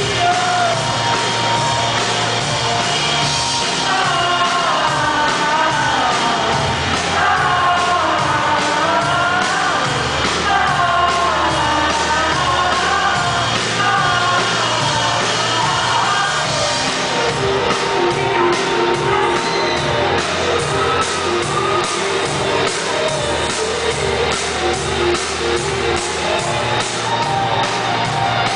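Live band music with drums, keytar and keyboards under a sung lead vocal that wavers up and down. From about halfway on, the singing gives way to steady held notes.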